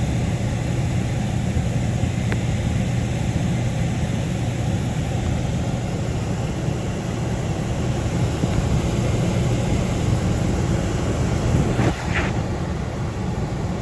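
Hydronic air handler running, a steady low hum, with a brief click about twelve seconds in.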